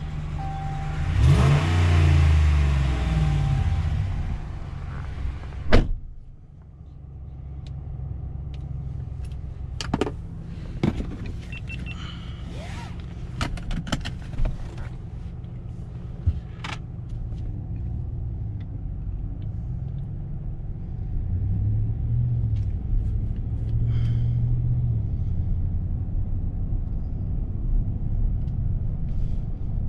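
Dodge Ram 1500's 5.7-litre HEMI V8 idling just after starting, its revs rising and settling in the first few seconds. A door slams shut about six seconds in, and after that the idle is quieter and steady, as heard inside the cab. Scattered clicks and knocks come from the interior.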